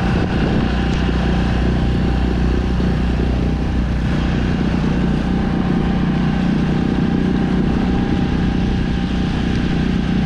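Yamaha 6 hp outboard motor running steadily.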